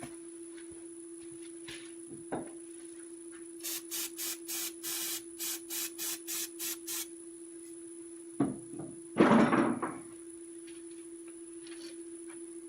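A steady hum from the woodturning lathe. In the middle comes a run of about ten short, evenly spaced hissing bursts, and about nine seconds in a brief, louder rubbing noise.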